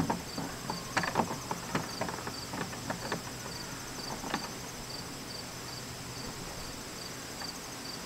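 A Phillips screwdriver turned by hand, driving a screw into a plastic window frame, gives a run of small clicks and knocks over the first four seconds or so. Behind it, insects chirp steadily: a short high pulse about twice a second over a constant high buzz.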